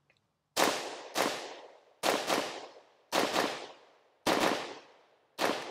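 CZ Bren 805 PS1 5.56mm pistol fired with its muzzle brake, a string of about nine semi-automatic shots, mostly in quick pairs roughly a second apart. Each shot is sharp and trails off in a long echo.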